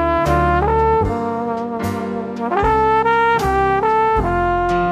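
Outro music: a brass lead plays long held notes that step up and down in pitch over a steady drum beat.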